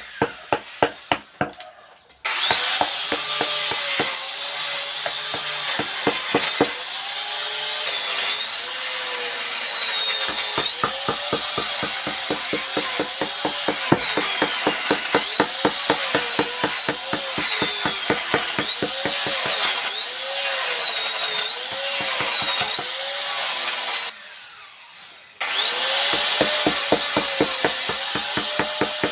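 Small high-speed electric carving tool cutting wood: a high whine that dips and recovers in pitch as the cutter bites and frees, over a fast chatter of the bit against the wood. It winds down and stops about two seconds in, then starts again with a rising whine, and stops and restarts once more near the end.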